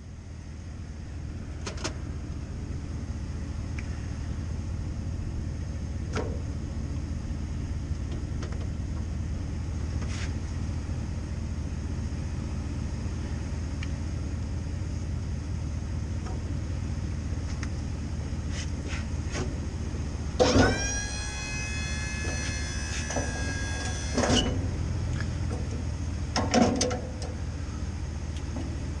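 Pickup truck engine idling steadily, with scattered clicks and knocks of the plow mount being latched. About two-thirds of the way through, the snowplow's electric hydraulic pump whines for about four seconds as it works the plow.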